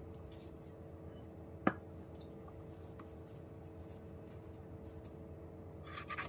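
Quiet kitchen work over a steady low hum: one sharp knock about a second and a half in, then near the end a chef's knife slicing into a banana pepper on a wooden cutting board.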